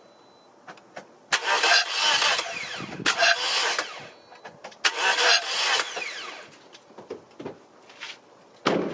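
Toyota Matrix engine cranked on the starter in three bursts of about a second each without firing, for a compression test on cylinder 3, which reads only about 75 psi: low compression. A short knock near the end.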